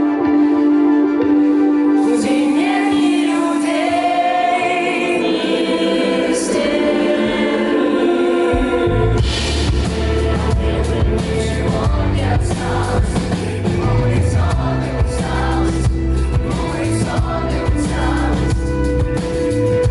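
Rock band playing live with singing. Held chords carry a sung melody, then bass and drums come in about halfway through and the full band plays on.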